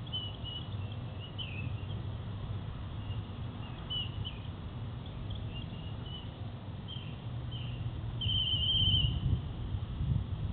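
Short high chirps come and go, and about eight seconds in a whistle trills for about a second, over a steady low rumble.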